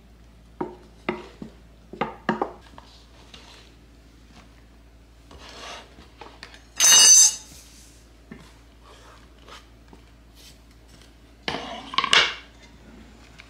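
A wooden spoon stirs and knocks against an enamel bowl. Sliced mushrooms are scraped off a wooden cutting board into the bowl. A brief, loud ringing scrape comes about seven seconds in, and there is a cluster of scraping and knocks near the end.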